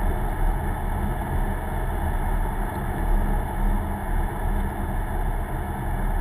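Steady in-cabin drone of a car driving on snow tires: engine hum and tyre road noise at an even speed.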